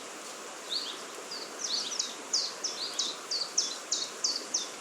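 A small bird singing a run of short, high chirps that come faster and closer together from about a second and a half in, over a steady outdoor background hiss.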